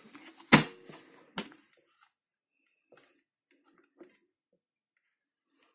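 A loud, sharp click about half a second in, a lighter knock just under a second later, then a few faint small clicks.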